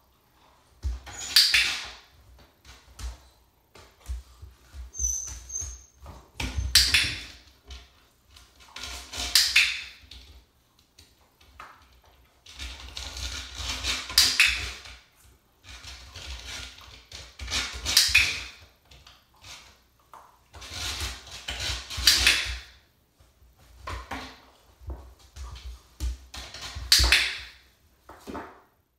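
A puppy's claws scratching and scraping at a nail board (scratchboard) in short spells every few seconds, with soft knocks of the board.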